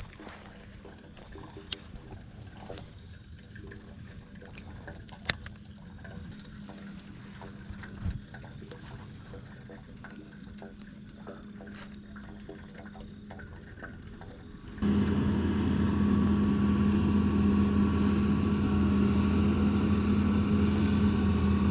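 Engine of a combine harvester working nearby: a faint steady hum with a few light clicks, then, about two-thirds of the way in, a sudden step up to a much louder steady engine hum that keeps going.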